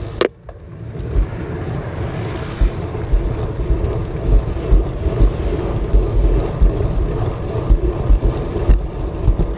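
Bicycle ride in the open, with wind buffeting the microphone in irregular low gusts over steady road and traffic noise. About a quarter-second in, the sound briefly drops out.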